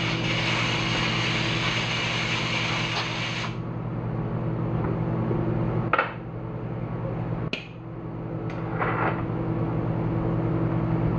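A loud hiss of compressed air from an air tool that cuts off suddenly about three and a half seconds in, over a steady motor hum. A few sharp clicks and knocks follow in the second half.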